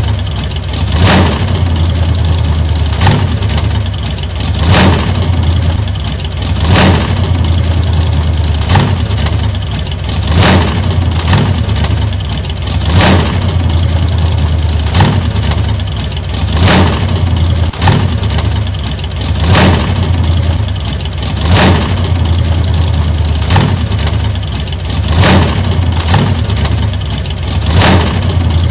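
1940s car engine running with a steady low hum, swelling in loudness about every two seconds.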